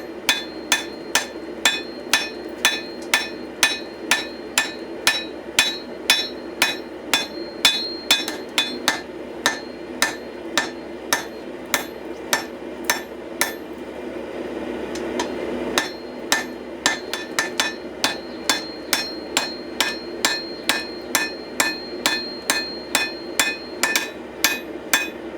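Hand hammer striking a hot pattern-welded damascus steel billet on an anvil in quick, even blows, about two to three a second, knocking the corners off the bar before it is twisted. The blows ring, pause for about two seconds roughly two-thirds of the way through, then resume, over a steady low roar.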